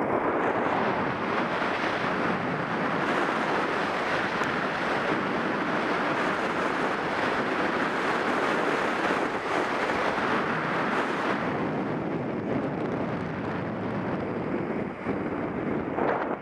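Wind rushing over the microphone and skis hissing and scraping on groomed snow during a downhill run, a steady noise that eases a little about two-thirds of the way through.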